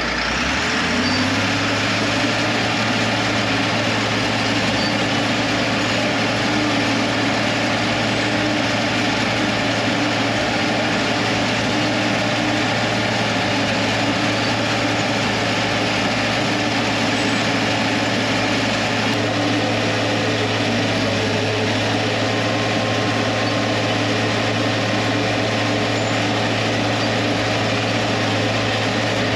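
Diesel engine of a TD15C crawler dozer running steadily, heard close up from the operator's seat. It rises in pitch about a second in as it is throttled up, then holds a constant drone.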